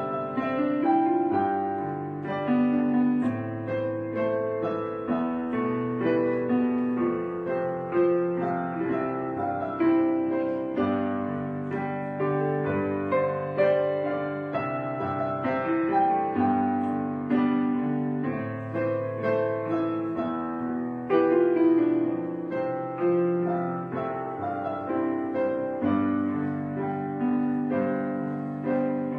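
Background piano music: a steady run of piano notes, with no speech over it.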